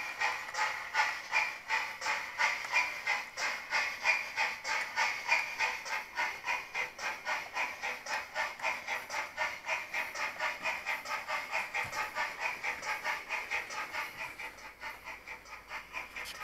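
Digital sound decoder in a Bachmann OO gauge GWR 3700 Class 4-4-0 model locomotive playing steam exhaust chuffs and hiss through its small speaker as the loco pulls away under power. The chuffs come in an even rhythm several times a second and fade toward the end.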